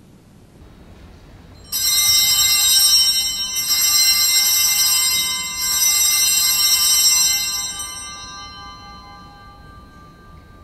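Altar bells (sanctus bells) rung three times, about two seconds apart, starting about two seconds in, each ring a bright cluster of high tones that then fades away. They mark the elevation of the consecrated host at Mass.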